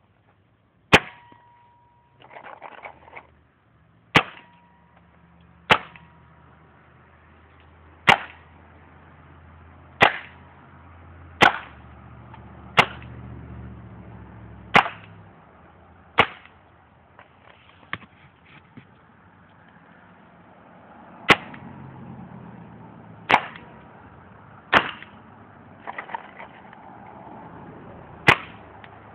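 VL Triton 2 paintball gun firing single shots at juice cartons, about fourteen sharp cracks spaced irregularly a second or two apart, with brief rattles between some shots.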